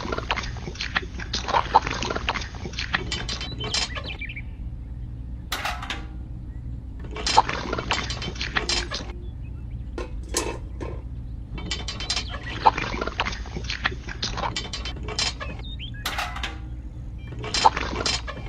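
A steady low hum of a small motor, with repeated bursts of gritty scraping and clicking, each a second or two long.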